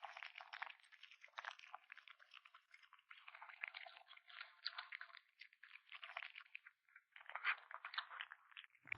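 Kitten chewing meat, faint quick clicking bites in short runs with brief pauses.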